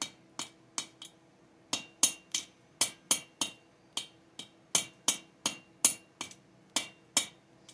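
A run of light, sharp metallic taps and clicks, about two to three a second and fairly even. Each has a brief ring, as of small metal parts or a tool being worked on a chainsaw during disassembly.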